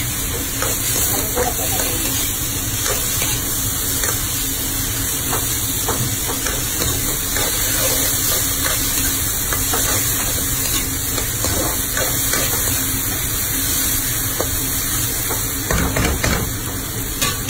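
Sliced tomatoes and garlic sautéing in oil in a metal pan, sizzling steadily while a spatula stirs and scrapes the pan with irregular clicks, a few louder scrapes near the end.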